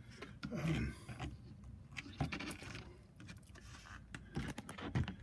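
Scattered light clicks and scrapes of a window's side jamb liner being handled and pushed into place in the frame, thickest near the end, with a few muttered words.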